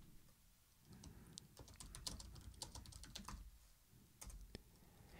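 Faint typing on a computer keyboard: a run of light key clicks over a couple of seconds, then a few more clicks near the end.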